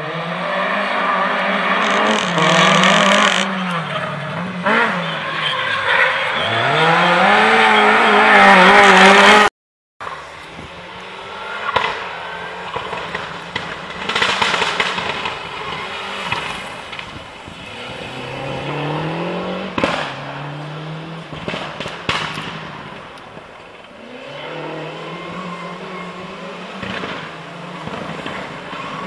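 Rally cars running a tarmac stage at full effort. First a car accelerates hard, its engine revving up repeatedly through the gears. After a break, a Lancia Delta Integrale comes nearer, its engine revving and lifting off with sharp pops and crackles from the exhaust.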